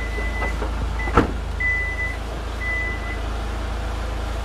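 Power tailgate of a Hyundai Santa Fe beeping its warning tone, a steady high beep that sounds on and off several times, with a sharp click about a second in over a steady low rumble.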